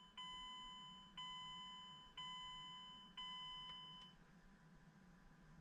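Mazdaspeed6's electronic warning chime dinging about once a second, four times, each ding fading before the next, then stopping about four seconds in.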